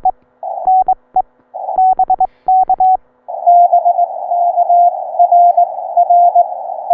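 Morse code from a Ten-Tec Eagle transceiver: for the first three seconds a clean sidetone is keyed in quick groups of dots and dashes. Then a narrow band of receiver hiss opens, and another station's Morse code comes through it at a slightly lower pitch.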